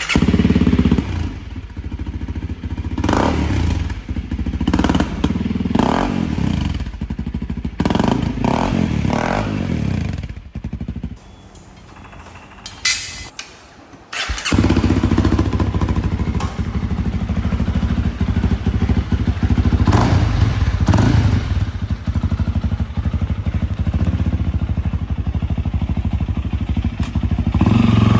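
Honda CRF300L's 286 cc single-cylinder four-stroke engine heard through its newly fitted aftermarket exhaust: it fires up and is blipped several times, drops away about eleven seconds in, then runs again steadily with a couple more revs.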